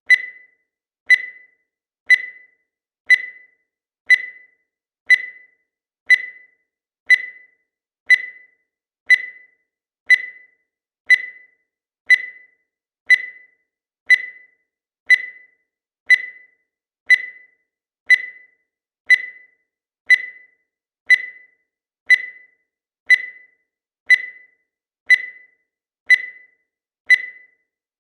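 Digital timer beeping once every second, marking each second of the countdown. Each beep is a short, high-pitched electronic pip that dies away quickly, repeating evenly.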